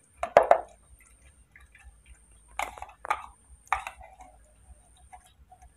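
A young palm civet lapping and chewing formula milk mixed with banana from a tray: short wet slurping sounds, a loud cluster near the start and three shorter ones around the middle.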